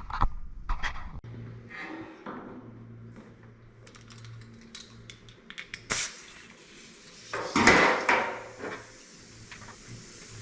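Scattered knocks and clatter of objects being handled, with a sharp knock about six seconds in and a louder scraping rustle about two seconds later, over a faint steady low hum.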